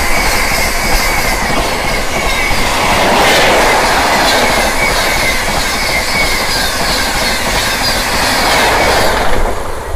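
LHB passenger coaches of an express train rushing past at about 130 km/h. The wheels make a steady rumble and clatter on the rail, with faint high squealing tones over it.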